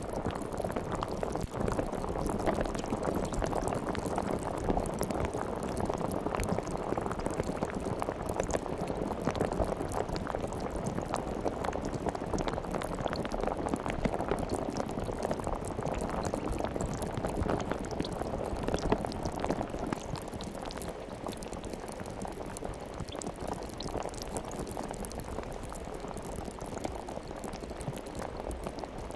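Steady bubbling, liquid sound: a continuous mass of small pops and fizz, with no speech. It serves as the background track of a subliminal audio.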